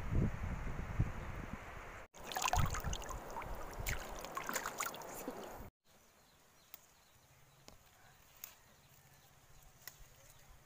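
Flowing river water with wind rumbling on the microphone. About two seconds in, after a cut, come a few seconds of light rustling and crackling, and the last half is near silence with a few faint ticks.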